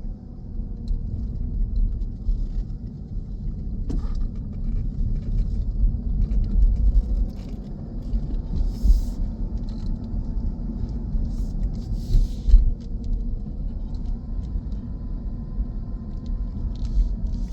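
Low, steady rumble of a car on the road, with a faint engine hum drifting slowly up and down in pitch.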